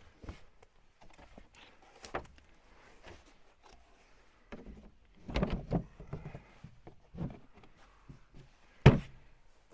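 Irregular knocks and thumps: a single one about two seconds in, a quick cluster about halfway through, and the loudest thump near the end.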